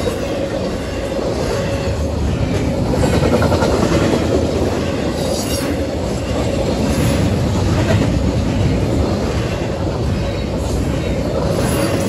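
Intermodal freight cars (double-stack container well cars and a trailer flatcar) rolling past at track speed. Their wheels give a steady heavy rumble, with a few sharp clacks over rail joints.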